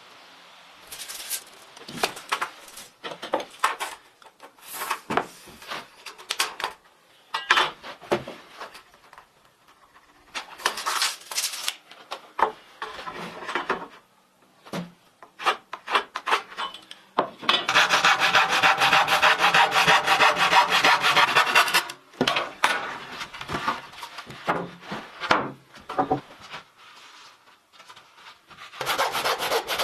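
A hand tool working wood, rasping and scraping in irregular strokes, then a run of fast, even strokes for about five seconds in the middle and again near the end.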